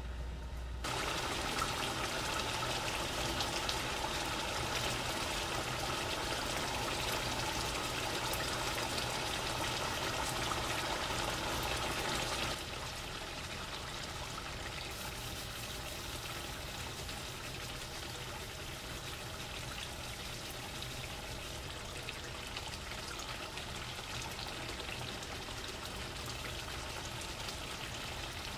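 Chicken karahi sizzling and bubbling in the pan, a steady hiss of oil and simmering sauce that starts suddenly about a second in and drops a little in level about twelve seconds in.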